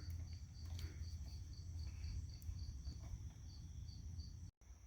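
Crickets chirping faintly in a steady pulsed rhythm, about three chirps a second, over a low hum, with a few faint clicks; the sound cuts out for an instant near the end.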